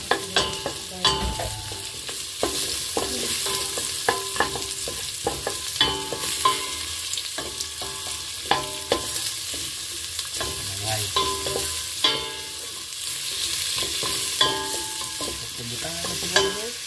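Garlic, ginger and red onion sizzling in hot oil in a metal pot, stirred with a wooden spoon that knocks and scrapes against the pot in irregular taps, each with a short metallic ring. The aromatics are being sautéed, the garlic already browning.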